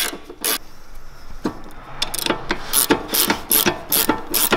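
Ratcheting spanner turning the nut on a front upper control arm bolt, its pawl clicking in quick short strokes, a few a second, with a brief pause near the start.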